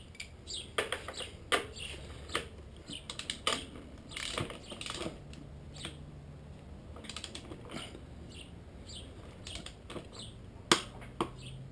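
Irregular metallic clicks of a ratchet torque wrench tightening a motorcycle's front axle nut to 65 foot-pounds, with a sharper click about eleven seconds in. Birds chirp in the background.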